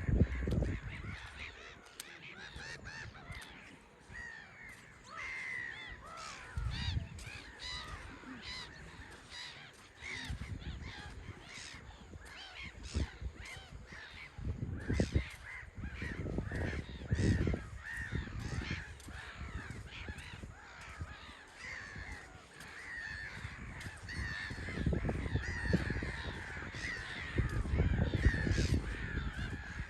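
A flock of seabirds calling, many harsh overlapping calls that grow busier in the second half, over irregular low rumbling bursts.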